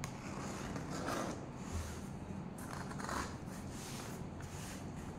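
Packing tape on a cardboard box being slit open with a small handheld cutter, with scraping and rubbing against the cardboard; the louder strokes come about a second in and about three seconds in.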